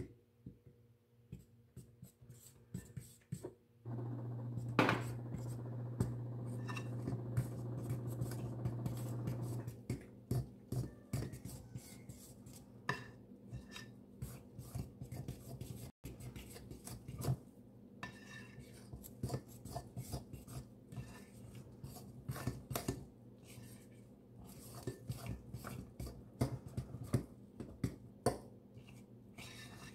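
Metal fork scraping and clinking against a ceramic mixing bowl in quick, uneven strokes while stirring bread dough ingredients. A steady low hum runs from about four seconds in until nearly ten seconds, and it is the loudest sound while it lasts.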